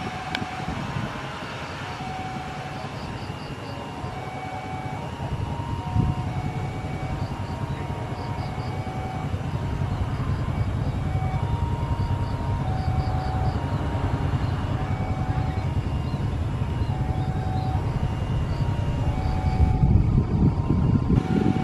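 Jet engines of a Boeing 737 running as it lines up on the runway: a steady low rumble that grows louder about twenty seconds in. Short, repeated high-pitched tones come and go over it.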